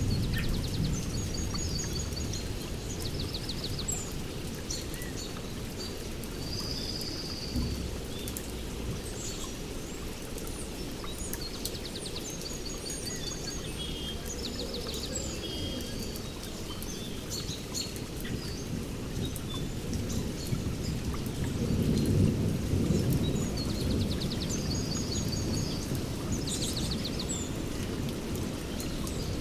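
Rain falling steadily with low rolling thunder, which swells at the start and again about two-thirds of the way through. Birds call throughout with repeated short chirps and trills.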